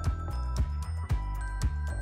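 Background music with a steady beat, about two strokes a second over a heavy bass.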